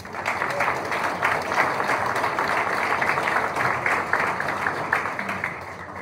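Audience applauding: many hands clapping, starting abruptly and fading away near the end.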